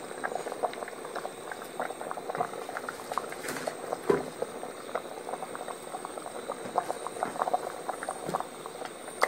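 Stew liquid bubbling at the boil in a cast iron potjie pot, a steady, irregular patter of small pops. A single soft knock comes about four seconds in.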